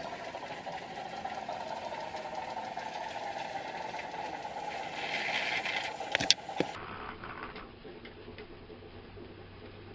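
Garden-scale model locomotive's electric motor and gears whirring steadily, with a few sharp clicks a little past halfway. After that the sound drops to a quieter low hum.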